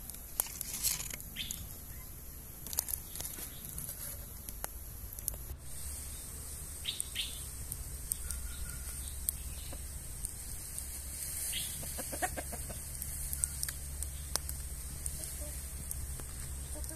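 Domestic chickens clucking in short calls now and then, over the crackle of a wood fire.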